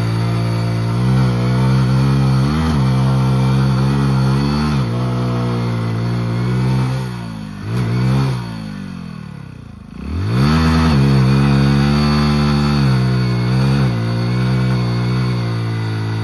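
Two modified Hero Splendor and HF Deluxe motorcycle engines held at high revs under load in a rope tug-of-war. About seven seconds in the revs fall away, then climb sharply back up near ten seconds.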